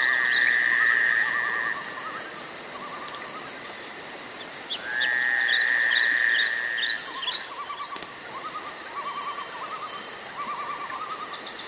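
Animal calls: a steady high insect-like drone under repeated trills and short chirps, with two long held whistle-like calls, the first at the start and the second about five seconds in.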